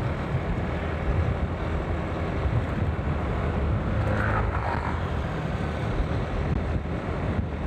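Motor scooter's engine running steadily while cruising, with road noise, heard from the rider's seat.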